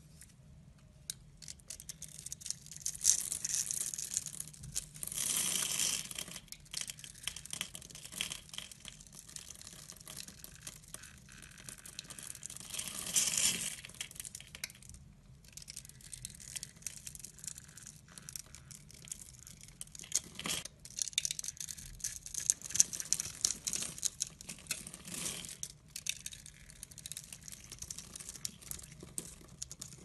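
Snap-off utility knife blade scoring a crosshatch grid into bars of soap, a dense crisp scraping and crackling as tiny soap cubes break away. It swells into louder crunching a few seconds in and again near the middle.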